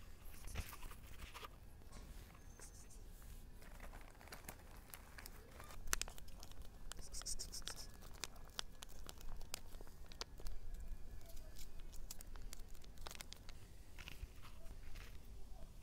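Plastic bag of dry cat food crinkling as it is handled, and kibble shaken out onto a flat board, giving scattered small clicks and rattles.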